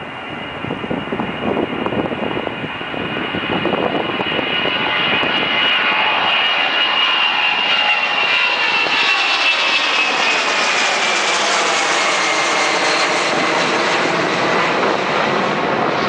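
Tupolev Tu-204 twin-jet airliner's engines at takeoff thrust as it lifts off and climbs past, growing louder over the first few seconds. A steady jet noise carries a high whine that slowly falls in pitch as the aircraft passes and moves away.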